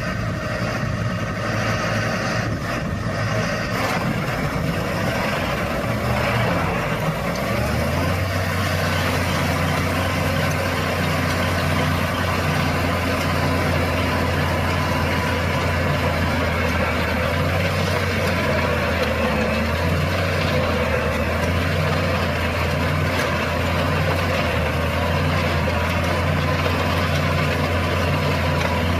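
Heavy diesel engine running steadily, with a deep low drone setting in about seven seconds in.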